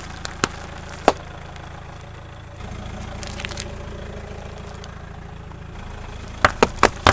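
Car engine idling in a steady low hum while a tyre rolls over packaged goods: plastic-wrapped tissue packs crackle and pop a few times in the first second. Near the end comes a quick run of loud, sharp cracks as small drink cartons are crushed under the tyre.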